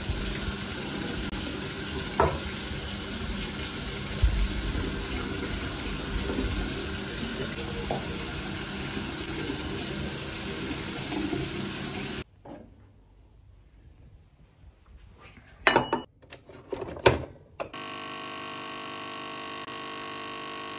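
Water running steadily from a bathroom tap during face washing, cutting off abruptly about twelve seconds in. After a quiet pause and two sharp clicks, a capsule coffee machine's pump starts a steady buzzing hum as it brews into a mug.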